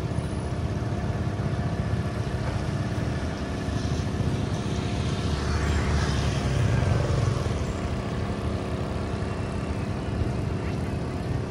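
A boat's engine running steadily at a constant speed, with a low rumble, growing briefly louder about six seconds in.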